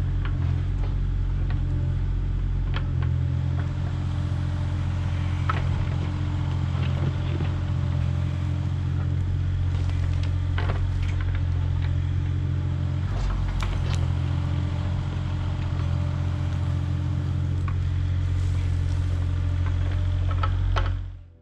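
Compact excavator's engine running steadily under working load, with scattered knocks and scrapes as the bucket digs and drops dirt and stones. The sound fades out right at the end.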